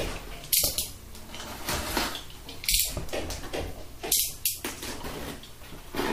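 Cardboard boxes being handled and pulled out of a larger cardboard carton, cardboard scraping and rubbing against cardboard in a few short scrapes.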